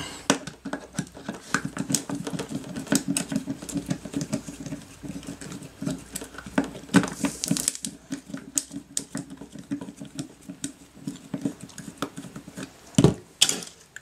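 Rapid small clicks and scrapes of a screwdriver bit turning a small Torx screw in a joystick's metal housing, with the part being handled. A few sharper knocks come near the end.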